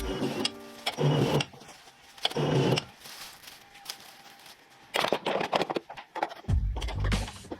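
A factory machine working, with irregular bursts of clattering and hissing a second or more apart.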